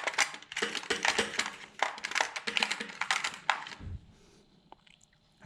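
Small metal TIG torch parts (collets and collet holders) clicking and tapping against each other as they are handled and sorted, a quick run of light clicks that stops after about three and a half seconds, followed by a soft low thump.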